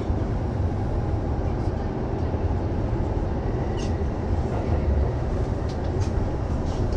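Commuter train running, heard from inside the car: a steady low rumble of wheels and running gear, with a faint thin whine in the middle and a few light ticks.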